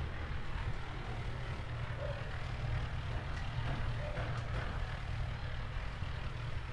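Steady low outdoor rumble with a hiss over it, and a few faint short chirps now and then.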